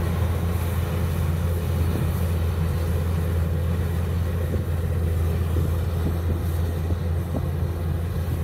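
Kubota DC-105X diesel combine harvester running steadily while it cuts and threshes rice: a constant low engine drone under the clatter and rush of its cutting and threshing machinery.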